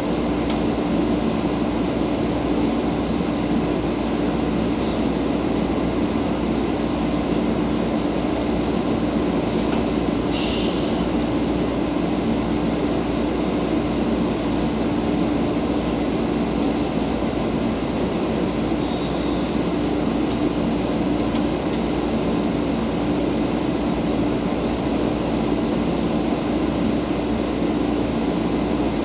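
Steady hum inside a standing 115 series electric train car, with a constant low tone from its onboard equipment and a few faint clicks.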